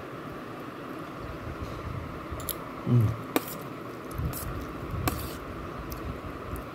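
Eating by hand from a stainless-steel plate: soft squishing of rice and daal, with a few sharp clicks. A brief low hum of a voice comes about three seconds in.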